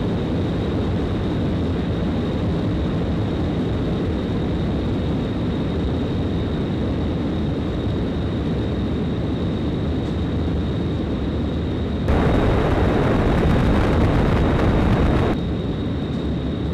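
Large wind tunnel blowing at high speed, about 150 km/h, onto a louvered facade mock-up: a steady, loud rush of wind with a deep rumble and a thin, steady high whine over it. About twelve seconds in, the noise jumps louder and brighter for some three seconds, then drops back.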